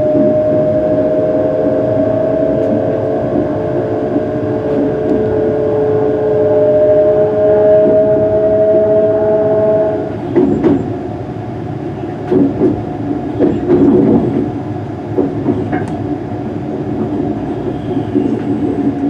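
Cabin sound of a Hitachi Class 385 electric multiple unit on the move: two steady traction-motor whine tones rise slowly in pitch over the rumble of the running train. About ten seconds in the whine drops away, and the wheels give several sharp knocks as the train runs over points and rail joints.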